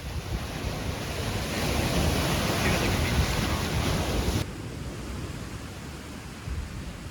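Wind rushing and buffeting over the microphone outdoors, a steady surf-like rush. About four and a half seconds in it changes abruptly to a duller, quieter rush.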